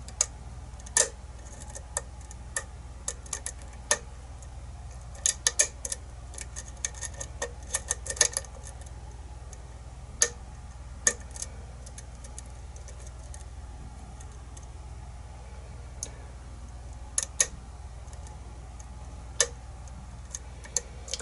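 Lock pick and tension wrench working the pins of a pin-tumbler challenge lock: irregular sharp metallic clicks, some in quick clusters, over a faint steady low hum.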